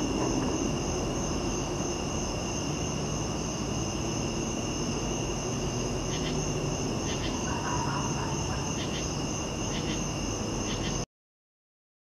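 Crickets and other night insects chirping steadily over a low even rumble, with a few faint ticks and a faint brief tone about eight seconds in. The audio cuts to silence about a second before the end.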